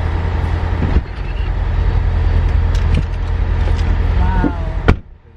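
Steady low rumble of idling vehicle engines coming in through an open car door, with a few knocks, then a loud thud about five seconds in as the car door shuts, after which the rumble is much quieter.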